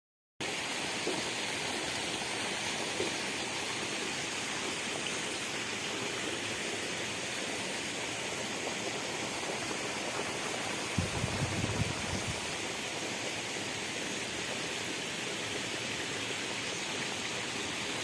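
Steady rushing of flowing water. A few low bumps come about eleven seconds in.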